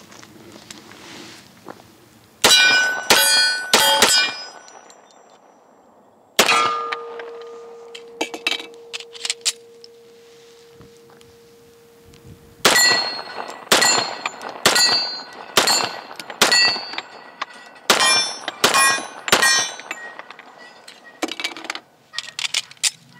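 A Kimber Team Match II 1911 pistol firing .45 ACP 230-grain cast-lead reloads, each shot followed by the ringing clang of a hit steel target. First comes a quick group of four shots. Then a single shot whose steel rings on for about six seconds, and then a fast string of about a dozen more shots with clanging steel.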